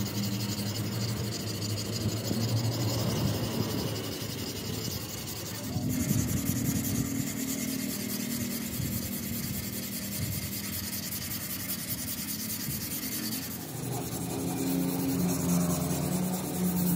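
Repeated scraping and rubbing strokes, with a steady low hum beneath near the end.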